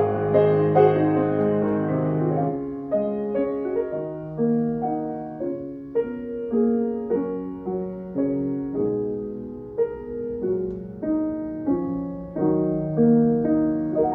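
Grand piano playing a solo interlude in a Chinese art song, with the voice resting. A slow melody of single notes, about two a second, runs over deep bass notes that stop a couple of seconds in.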